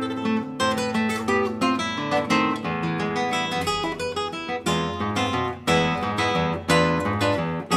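Solo nylon-string classical guitar playing a fast run of plucked notes, with loud strummed chords accenting the second half.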